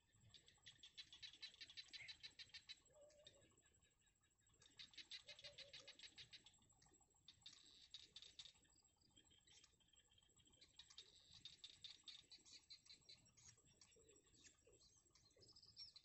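Bittern chicks in the nest calling in bouts of fast, dry ticking chatter, a begging call as they reach up to the parent; faint, with a few short lower calls mixed in.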